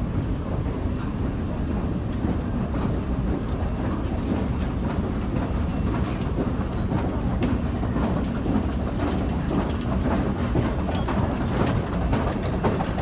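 Tube station escalator running: a steady low rumble with a busy, irregular clicking and rattling that grows busier near the end.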